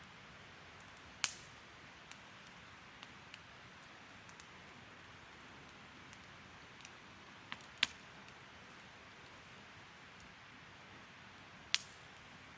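Wood campfire burning: a soft steady hiss with scattered small crackles and three sharp pops, about a second in, near eight seconds and near the end.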